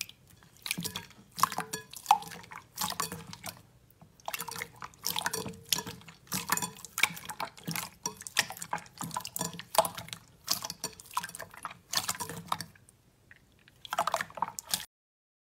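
Clear green slime squeezed and pressed by hands, squelching wetly with crackles and pops in repeated bursts. It cuts off suddenly near the end.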